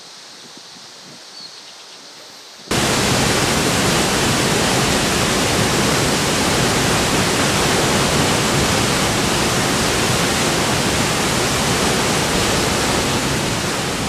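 Waterfall rushing: a loud, steady wash of falling water that cuts in suddenly about three seconds in, after a few seconds of faint, quiet outdoor background.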